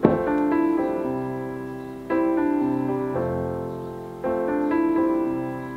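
Soft background piano music, a new chord struck about every two seconds and left to fade.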